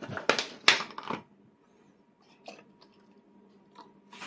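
A few sharp clicks and knocks of a child's fork against a plastic plate in the first second, the loudest about two-thirds of a second in. Then it goes quiet, with a faint tick midway and another click at the end.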